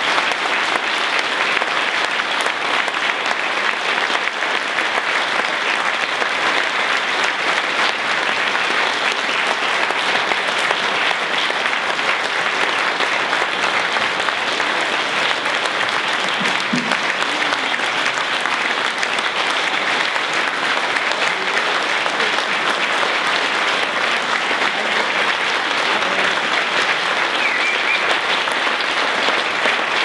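A large audience applauding steadily and at length, an even wash of many hands clapping that does not let up.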